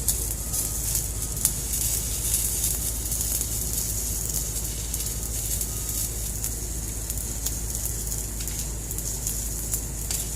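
Electric arc welding: a steady hiss with irregular crackling pops over a low hum.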